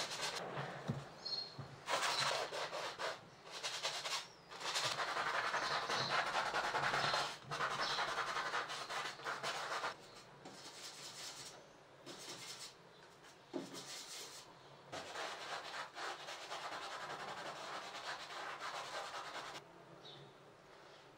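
A paintbrush rubbing and scraping oil paint on a wooden palette as it mixes colour. The strokes come in stretches of a second to a few seconds with short gaps, louder at first and quieter after about ten seconds.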